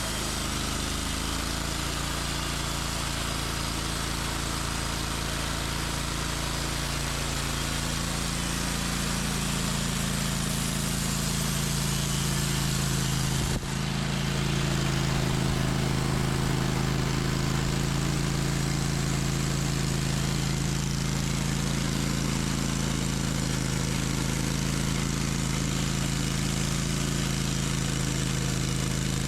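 Sawmill's engine running steadily, with a brief break about halfway through after which it runs a little louder.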